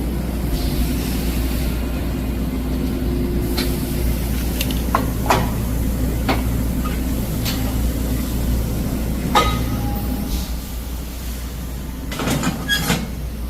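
Steady low hum of factory machinery, with scattered metallic clanks and clicks: a few single knocks in the middle and a quick cluster near the end.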